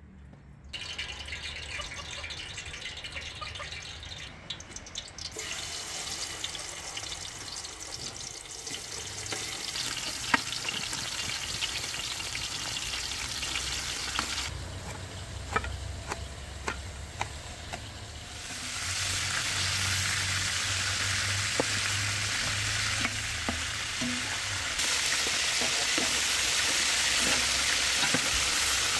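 Chicken pieces searing in a large metal pot over a wood fire: a steady sizzle that grows louder in steps through the second half, with a few sharp clicks and taps along the way.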